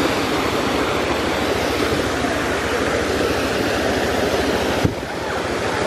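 ATV engine running under heavy rushing noise, with a fast, even low pulsing. A sharp click and a brief drop in level about five seconds in.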